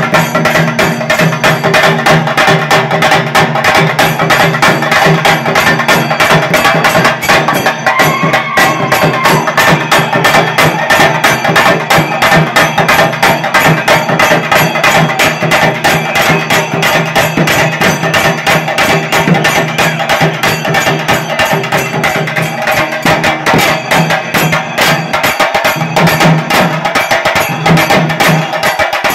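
Chenda drums, an ensemble of Kerala barrel drums struck with sticks, beating a fast, continuous rhythm of dense, even strokes.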